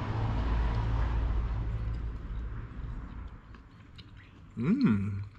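A steady low rumble with hiss that fades away over the first three seconds. Near the end a man hums an appreciative "mmm" as he tastes food.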